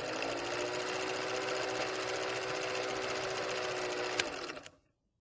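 Film projector running with a steady mechanical whir and rattle, the stock sound of an old-film countdown leader. A sharp click comes about four seconds in, and the whir stops half a second later.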